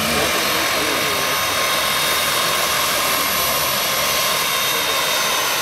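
SA-315B Lama helicopter in low flight: a steady rush of rotor and engine noise with a high, even whine over it.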